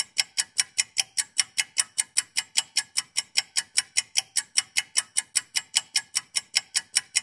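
Ticking-clock sound effect: an even run of sharp ticks, about five a second, laid over the footage in place of the room sound.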